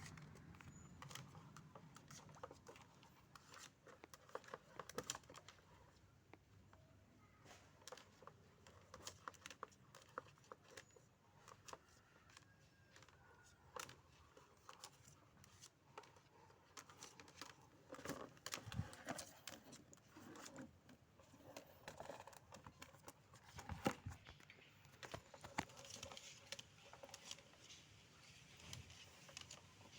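Faint, scattered clicks, taps and crinkling from close-range handling, irregular and sparse, with a few louder knocks near the middle.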